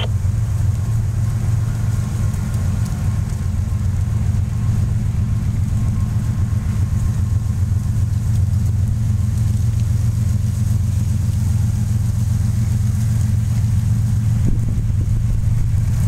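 A steady, low engine rumble that holds an even pitch throughout, with no revving or change.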